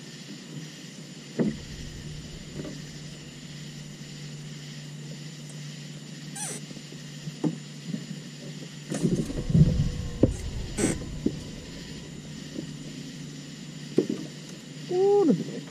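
Knocks and clicks of fishing tackle being handled in a boat, over a steady low hum, with a dense cluster of knocks about nine to eleven seconds in. Near the end come a couple of short calls that bend in pitch.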